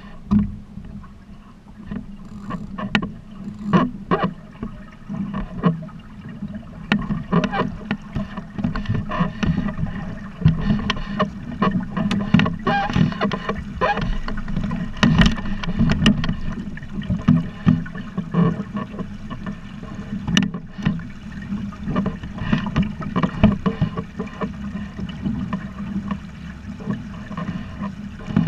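Lake water slapping and splashing against the hull of a Buccaneer 18 sailboat under way under sail, in frequent irregular knocks and splashes over a steady low rumble.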